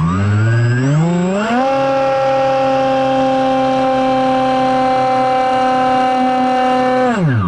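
Multiplex EasyStar II RC plane's electric pusher motor and propeller, heard from the onboard camera. Its whine rises in pitch over the first second and a half as power comes up, holds steady at high power through a steep climb, then drops away sharply near the end as the motor is throttled back.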